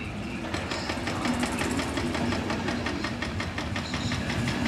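Passenger coaches of an intercity train rolling slowly along the platform. The wheels give a fast, even clicking over the rail, about five or six clicks a second, over a steady low hum.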